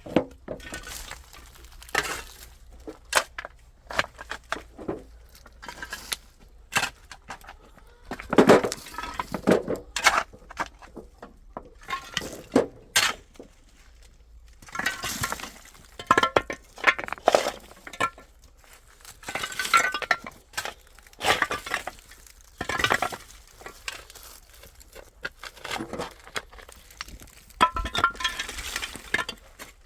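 Irregular clinks and knocks of hard objects being handled and set down, some of them ringing briefly.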